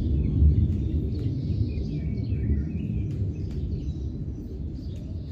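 Outdoor ambience: birds chirping over a steady low rumble, with a few faint clicks.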